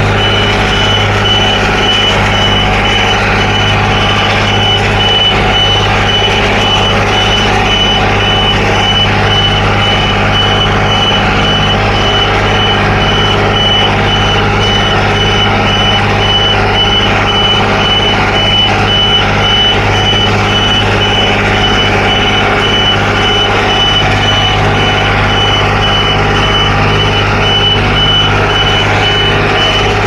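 Dongyang T553 tractor's diesel engine running steadily while it pulls a three-bottom moldboard plow through a flooded rice paddy, with a rapid high-pitched electronic beep repeating over it.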